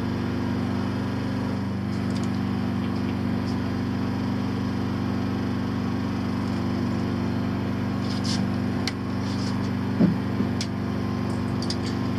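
Fishing boat's engine running steadily with an even, low drone. A few sharp clicks come near the end, with one louder knock about ten seconds in.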